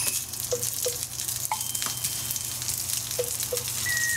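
Mackerel pieces coated in potato starch sizzling and crackling steadily as they pan-fry in a black frying pan. A few faint short pips sound, and a whistle-like tone slides downward at the very end.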